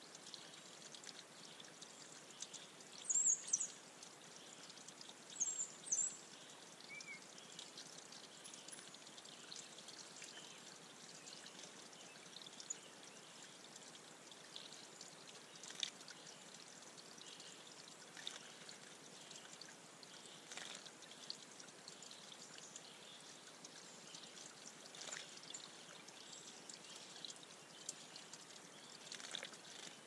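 Water trickling steadily over the rocks of a small backyard pond waterfall, with a few faint splashes from an indigo bunting bathing in the shallows. About three seconds in and again near six seconds, a bird gives a pair of short, high chirps, the loudest sounds here.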